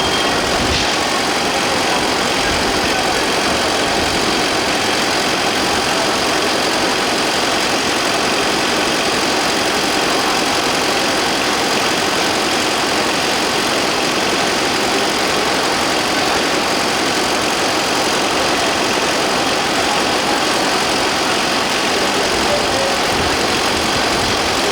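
Train engine running steadily: a loud, even, unchanging noise.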